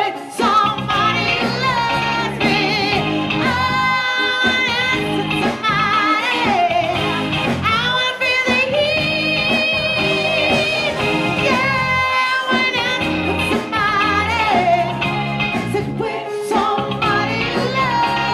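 Live band playing with a lead singer over it. The singer holds long, wavering notes, one of them for about two seconds near the middle.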